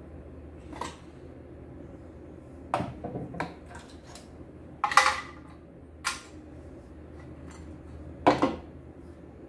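Hard plastic cover pieces from an embroidery machine knocked and set down on a wooden workbench while the machine is taken apart. It comes as a handful of separate clacks and knocks, the loudest about five seconds in.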